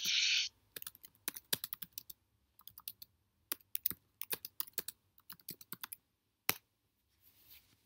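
Typing on a computer keyboard: a quick, irregular run of key clicks, then one louder single key press about six and a half seconds in, the Enter key sending the message. A brief hiss comes at the very start.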